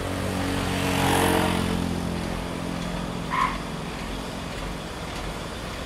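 Mitsubishi flatbed truck's diesel engine running under load through a steep hairpin bend, loudest in the first two seconds, with a short hiss about a second in. A short high beep sounds about three and a half seconds in.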